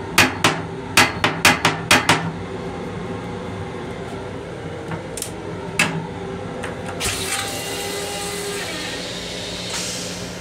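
Plastic toilet seat and lid knocking as they are handled, about eight sharp knocks in two seconds and one more around six seconds in. A hiss starts about seven seconds in, over a steady low hum.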